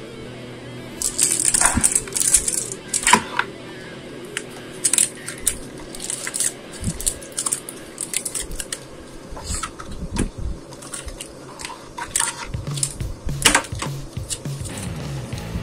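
Foil trading-card booster packs and a plastic blister tray crinkling and clicking as they are handled and set down, in a string of short crackles, loudest early on and again near the end, over background music.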